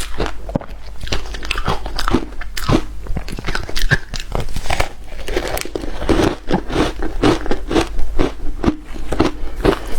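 Hard shaved ice being bitten and chewed close to the microphone: a dense, continuous run of sharp, crunchy cracks.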